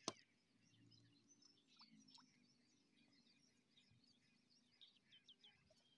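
Near silence: faint outdoor ambience with scattered, distant high bird chirps, after a single sharp click at the very start.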